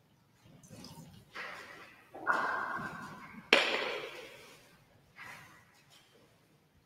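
Close handling noises from the chalice and purificator cloth at the altar during the purification of the vessels. A rustle comes about a second and a half in, then two louder noises, the loudest starting sharply about three and a half seconds in and trailing off in the church's echo.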